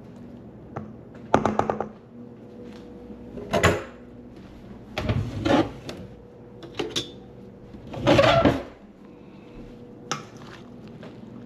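Kitchen handling noises: about six short clatters and rustles a second or two apart, the loudest about eight seconds in, over a faint steady hum.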